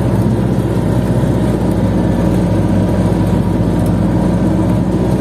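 Belarus tractor's diesel engine running steadily under load, pulling a mounted plough through the soil.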